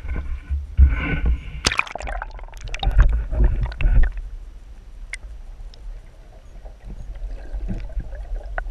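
Sea water splashing and sloshing around an action camera as it is dipped under the surface. From about four seconds in this gives way to the muffled hush of underwater sound, with a couple of sharp clicks.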